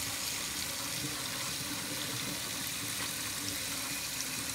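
Hot water running steadily from a sink tap, splashing over a block of ice to melt it.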